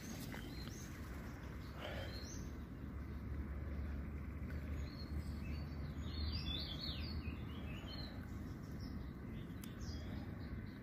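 Small birds chirping, a run of short high calls in the middle, over a steady low rumble.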